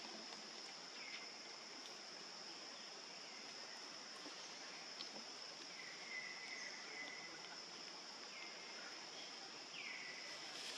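Faint outdoor ambience: a steady high insect drone over a soft hiss, with about five short high calls that fall in pitch and then level off.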